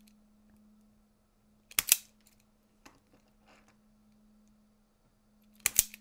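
Klein Katapult spring-loaded wire stripper stripping the insulation off 12-gauge conductors, twice: a quick pair of sharp snaps about two seconds in and another pair near the end, with a few lighter clicks of the tool between.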